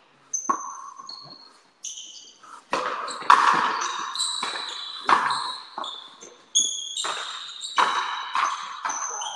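Frontenis rally: the rubber ball struck by strung rackets and smacking off the fronton wall, a dozen or so sharp hits every half second to a second, each with a high ringing tail.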